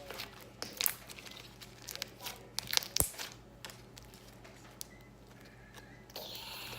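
Scattered sharp clicks and taps with some crinkling and rustling, as of hands handling containers and materials on a table, with a short rustle near the end.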